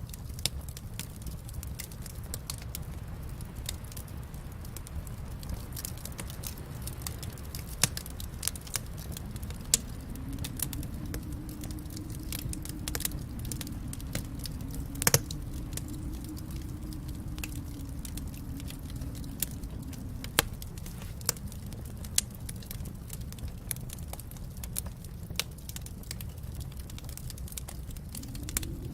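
Fireplace fire crackling: a steady low rumble of flames under irregular sharp crackles and pops, the loudest pop about fifteen seconds in.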